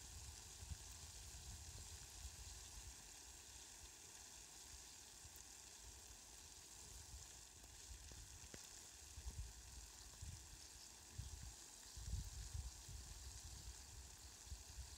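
Faint, steady hiss of rain falling on flowers and grass, with low rumbles now and then, heaviest about twelve seconds in.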